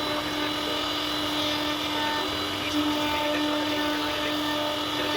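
CNC router spindle running steadily while carving wood, a constant whine over the noise of the cut.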